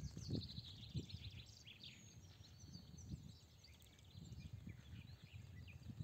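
Small birds chirping and trilling, faint, with a low uneven rumble of wind on the microphone underneath.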